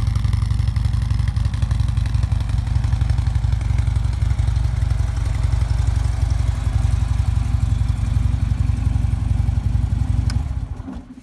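2015 Harley-Davidson Ultra Limited's Twin Cam 103 V-twin idling steadily after a cold start, through a decat header and Vance & Hines Monster Rounds mufflers fitted with Smartpartz Hard Kore quiet baffles. The engine is shut off near the end and the sound dies away.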